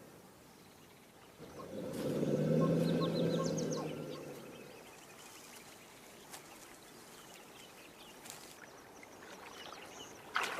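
A large animal gives a deep, rumbling call lasting about two seconds, starting about a second and a half in. Faint bird chirps sound over quiet outdoor background.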